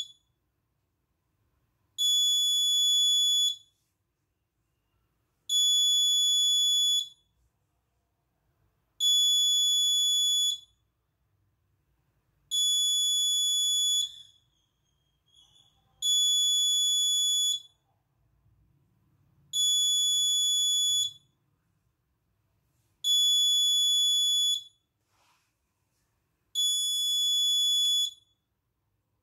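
Alarm buzzer of a DS1307 real-time-clock alarm giving long, high, steady beeps of about a second and a half each, repeating about every three and a half seconds: the clock's set alarm time has been reached and the alarm is going off.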